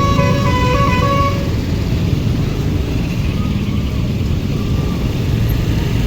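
A bus's telolet (basuri) multi-tone musical horn playing a melody that warbles between two close notes, cutting off about a second in. After that a large vehicle's engine and road noise carry on as a heavy low rumble.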